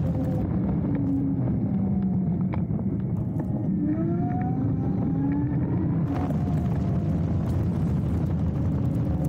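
Dualtron Thunder electric scooter riding at speed: a steady rumble of wind and tyre noise, with the motors' whine gliding in pitch and rising clearly about four seconds in as it picks up speed.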